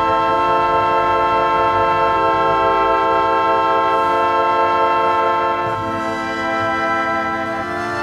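Background music of sustained held chords, moving to a new chord about every two seconds.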